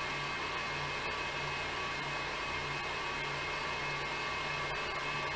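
Stationary exercise bike pedalled hard at high cadence: a steady whir with a thin high whine, over a low hum that pulses about twice a second.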